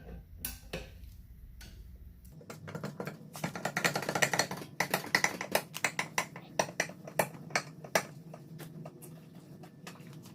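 Scissor jack being cranked to lift a car: a quick run of light metallic clicks and knocks, several a second, starting a couple of seconds in.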